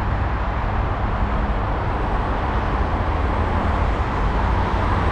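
Steady road traffic noise, with cars passing on the road below and a strong low rumble.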